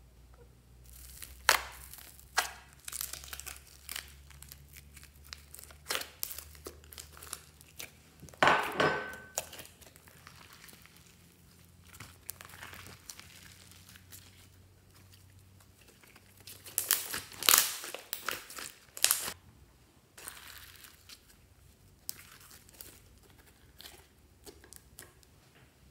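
Glossy slime squeezed and stretched by hand: irregular sticky crackles, pops and squelches in clusters, loudest about a third of the way in and again past halfway.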